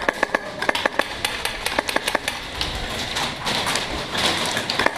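Airsoft guns firing in quick, irregular sharp snaps, thick in the first couple of seconds, thinning out in the middle and picking up again near the end.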